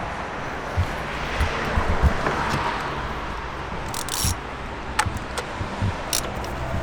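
Steady outdoor wind and traffic noise, with a few low knocks and a handful of sharp clicks from the plastic oil filter housing cap being threaded on by hand.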